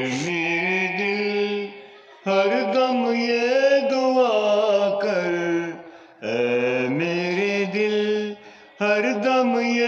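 A man singing a slow, drawn-out melody close into a handheld karaoke microphone, in four long phrases with gliding, wavering pitch and short breath pauses between them.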